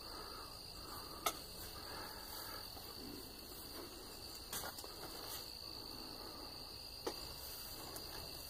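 Insects, likely crickets, keeping up a steady high-pitched trill, with three faint clicks spread through it.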